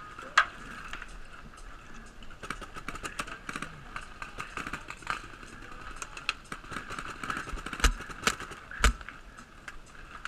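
Paintball markers firing in an irregular string of sharp pops, some close and some distant, over a steady hiss, with a few louder pops near the end.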